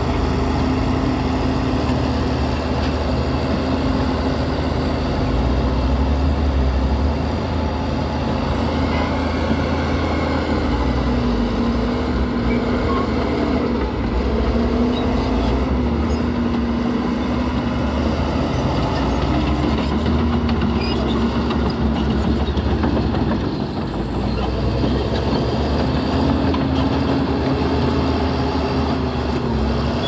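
Heavy diesel earthmoving machinery running under load, a steady low rumble with an engine note that sags and rises every few seconds as the load changes.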